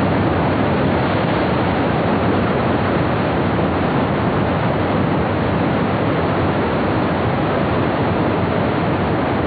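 Loud, steady rush of whitewater: a mountain river's rapids pouring over a fall.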